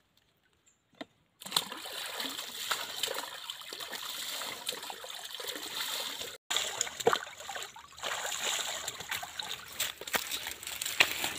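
Pond water poured from a plastic dipper bowl over a bather's head and body, splashing and trickling back into the pond. It starts about a second and a half in, with sharper splashes among the steady pouring, and breaks off briefly just past halfway.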